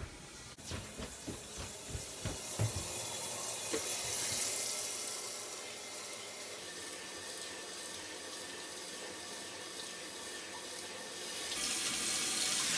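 Bidet's upward water jet running steadily and splashing into the porcelain bowl, getting louder near the end. A few soft thumps in the first three seconds.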